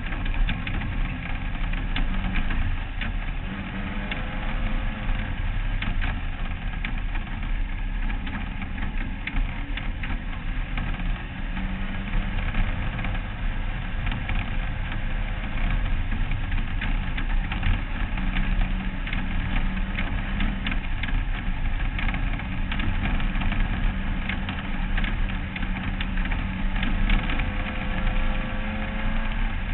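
Off-road race car's engine running under way on a dirt track, recorded onboard, with a low rumble of wind and chassis and many sharp knocks and rattles from the rough ground.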